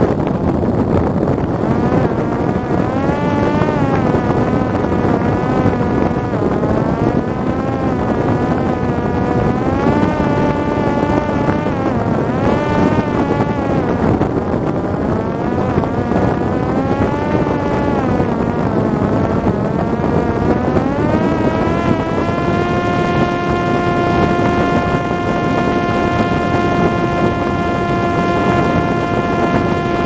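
Parrot Disco fixed-wing drone in flight, heard from on board: its electric motor and rear propeller whine over a heavy rush of wind. The pitch rises and falls every second or two with throttle changes, then holds steady from about three-quarters of the way through.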